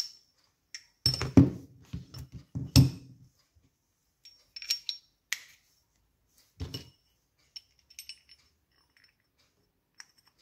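Steel axle, spacers and bearing housing of a motorcycle rear wheel being handled, knocking and clinking against each other in a series of separate knocks. The loudest come in the first three seconds, with a few more around the middle and only faint ticks after.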